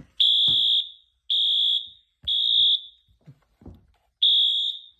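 Wheelock AS-24MCW fire alarm horn/strobe's electronic horn sounding in the temporal code-3 pattern, set to low volume: three short, high-pitched blasts, a pause, then the next round of three starting near the end.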